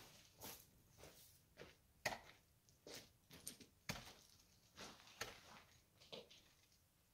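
Footsteps on loose gravel and stones, an uneven step roughly every half second to a second, dying away near the end.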